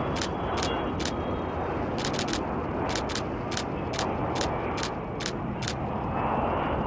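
Distant jet roar of a large aircraft with six Boeing 747 engines, steady throughout, with about fifteen camera shutter clicks going off at irregular intervals over it.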